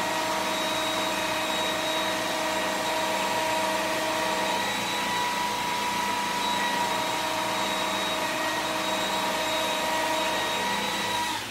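Motor-driven knife sharpener running steadily with a high whine while the leather skiving knife is sharpened; it shuts off near the end.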